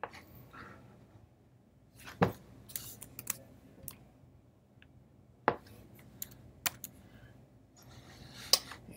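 Irregular clicking of a computer mouse, about ten sharp clicks spread over several seconds, the strongest about two, five and a half and eight and a half seconds in.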